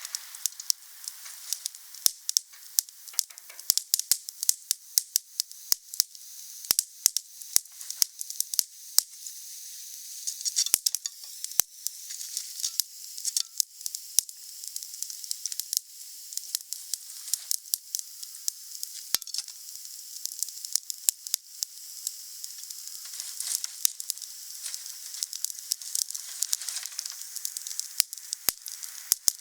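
Wood fire burning: irregular sharp crackles and pops, several a second, over a steady high-pitched hiss.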